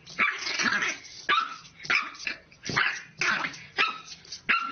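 French bulldog puppy barking in a string of short, high-pitched barks, about two a second.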